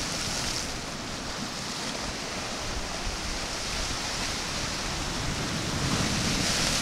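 Sea waves breaking against a rock jetty, a steady rush of surf and washing water with a bigger crash and splash near the end.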